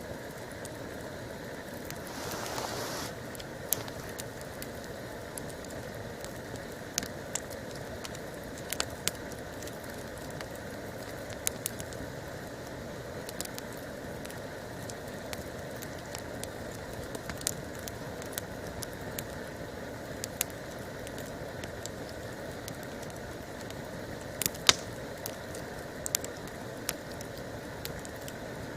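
Wood campfire crackling, with scattered sharp pops over a steady background hiss; one pop a little past three-quarters of the way through is louder than the rest.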